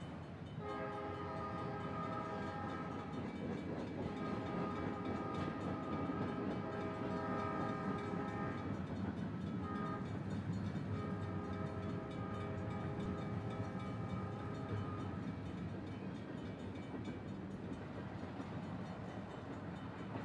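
Full-size train sounds: a train horn blowing one long blast, a brief toot, then another long blast, over the steady rumble of a moving train.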